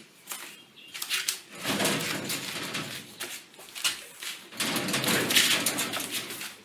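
Handling noise: rustling with irregular clicks and knocks, in two stretches, the first starting about a second in and the second shortly before the end.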